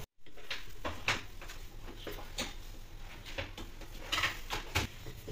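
Hands crushing and fluffing a crisp, freshly cooked laccha paratha on a wire cooling rack to loosen its layers: scattered soft crackles and taps, a few sharper ones about a second in and again near the end.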